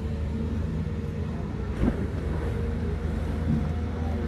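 Case CX220 excavator's diesel engine running steadily under hydraulic load as the machine swings and lowers its boom and bucket. A brief louder sound rises over the drone about two seconds in.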